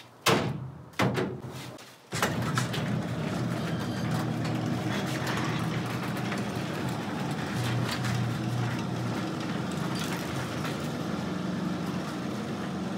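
The hood of a Volvo 240 slammed shut, two knocks within about a second, then a sectional garage door coming down on its opener, running steadily for about eleven seconds.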